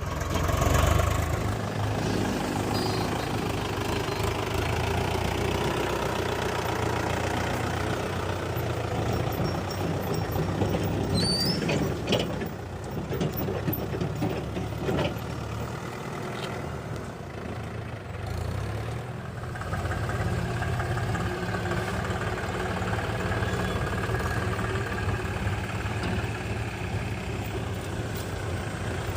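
Diesel engines of a backhoe loader and tractors running steadily at a work site, the engine sound dipping and picking up again partway through.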